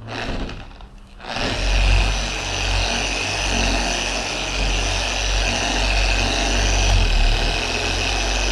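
Griot's Garage G8 dual-action polisher with a microfiber pad starting up about a second in and running steadily at low speed (speed 2), spreading compound over a car hood's paint.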